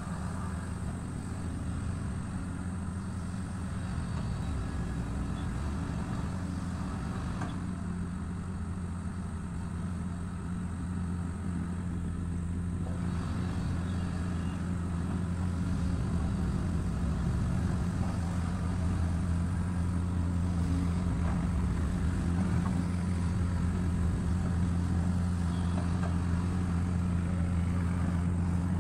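Sany SY215C excavator's diesel engine running with a steady low drone while the machine works its boom on the pile, growing slightly louder toward the end.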